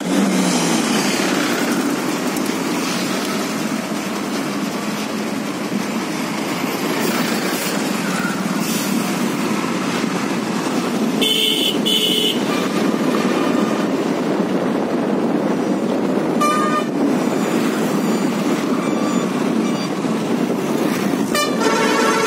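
Road traffic heard from a moving motorcycle: a steady rush of wind and road noise, with vehicle horns honking. There are two short toots about eleven seconds in, another brief one a few seconds later, and more honking starting near the end.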